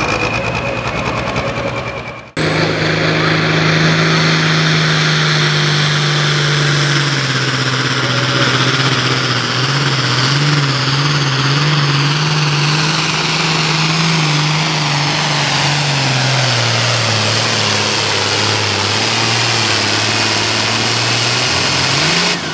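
A John Deere hot farm pulling tractor's 466-cubic-inch diesel running flat out as it drags the weight-transfer sled. Its steady engine note sinks slowly in pitch over the second half as the sled's load pulls the revs down. A different tractor's engine is heard for about two seconds first and cuts off suddenly.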